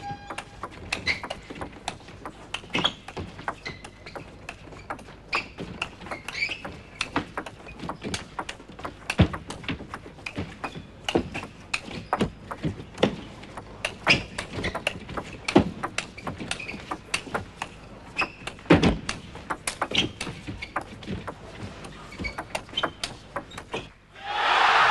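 Long table tennis rally: the celluloid ball clicking sharply off the rackets and bouncing on the table, about two hits a second in an uneven rhythm. Just before the end the clicks stop and a much louder, dense sound cuts in abruptly.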